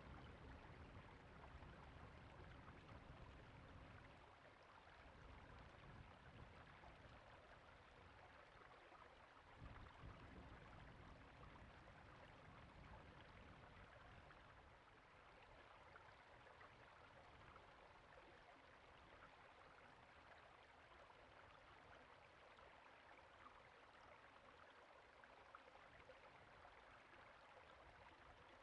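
Faint, steady rush of a flowing creek, with a low rumble in the first few seconds and again around ten seconds in.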